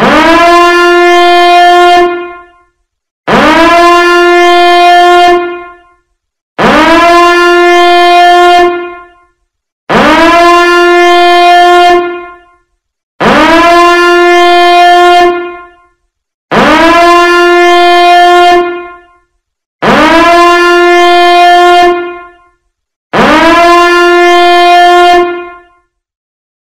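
A loud horn blast, shofar-like, repeated eight times at even spacing, about three seconds apart. Each blast scoops up quickly into one steady note with many overtones, holds for about two seconds, then fades out.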